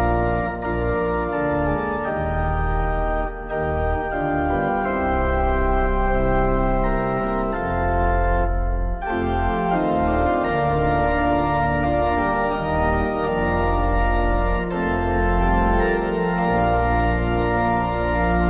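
Organ music: slow, sustained chords over held bass notes, changing every second or two, with the upper voices briefly lifting about eight and a half seconds in.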